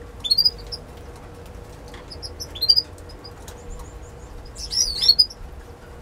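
Canary chirping in three short bursts of high notes, about two seconds apart.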